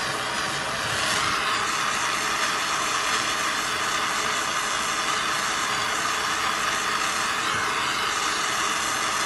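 Handheld jeweller's gas torch burning with a steady hiss. Its flame is held on a copper heart to heat it for sweat-soldering a silver bezel.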